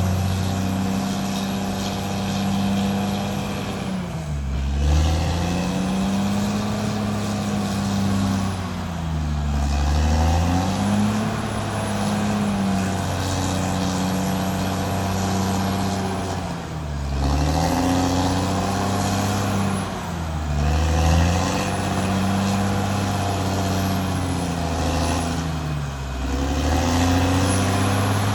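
Caterpillar D6R XL bulldozer's diesel engine running steadily under load, its pitch dropping and recovering about five times as the machine takes and sheds load while pushing soil.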